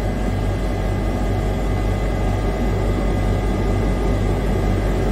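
KAESER Air Center SM12 7.5 kW rotary screw air compressor running loaded: a steady hum with a rushing air noise over it as it builds pressure past 10 bar.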